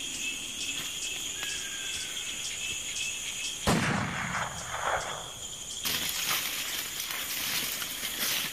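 Rainforest insects chirping steadily, broken about three and a half seconds in by a single loud gunshot, likely a hunting shot at a deer, with a noisy tail trailing off over the next second.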